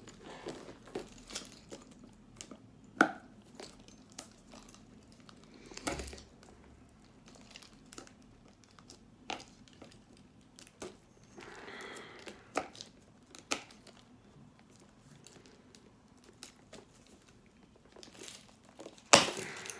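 Plastic shrink-wrap on a cardboard box being picked at with keys and torn: scattered crinkles, scrapes and clicks, a longer stretch of crinkling about twelve seconds in, and a sharp crackle near the end.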